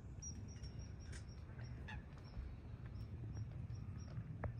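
A flock of water birds on a lake giving a few short, scattered calls, over a low steady rumble.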